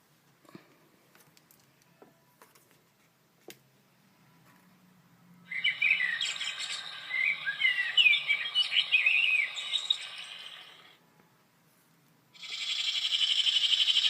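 Birds chirping and singing, with quick varied trills, for about five seconds starting about five seconds in. Near the end a steady, rapidly pulsing buzz begins.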